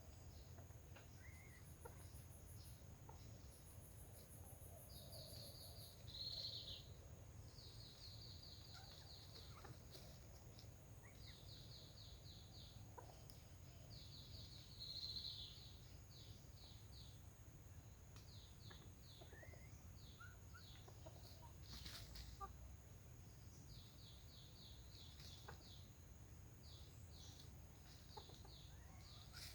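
Faint outdoor ambience of junglefowl calls. Repeated rapid high trills come every couple of seconds, two louder falling calls come about 6 and 15 seconds in, and a steady high insect-like whine runs underneath.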